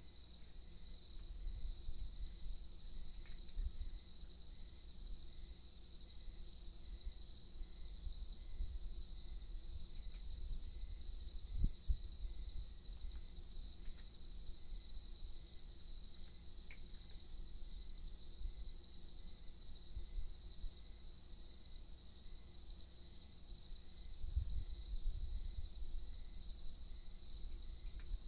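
Crickets chirping in a steady, pulsing high-pitched chorus, with an uneven low rumble underneath and a single short knock about twelve seconds in.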